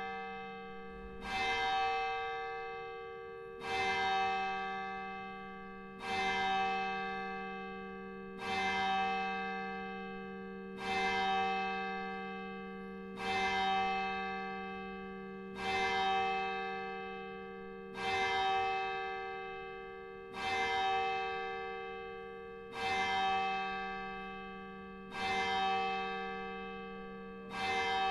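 A single church bell tolling, about twelve strokes at an even pace of roughly one every two and a half seconds. Each stroke is on the same note and rings on, fading slowly until the next.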